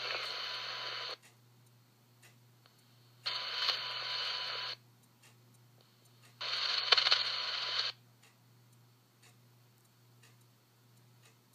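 Scanner radio squelch opening on the DSNY channel: the hiss left after a transmission cuts off abruptly about a second in, then two more bursts of static, each about a second and a half long, switch on and off sharply as the channel is keyed without clear speech. Faint regular ticking and a low hum sit underneath.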